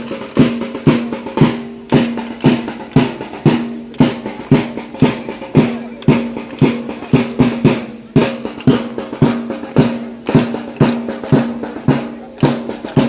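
Drum music with a steady beat of about two strong strokes a second and lighter strokes between them, each stroke ringing with a low pitch.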